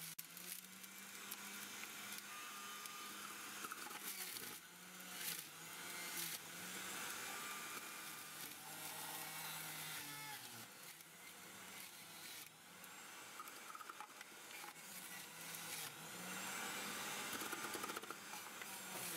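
Electric juicer running as pieces of pumpkin, apple and celeriac are pressed through it: a motor hum that sags in pitch now and then under load, with crunching of the produce and a few knocks.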